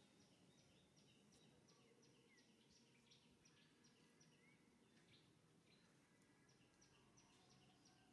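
Faint outdoor ambience with a small bird's quick, high chirps repeating about four times a second in two runs, the second starting near the end, with a couple of short rising whistles among them.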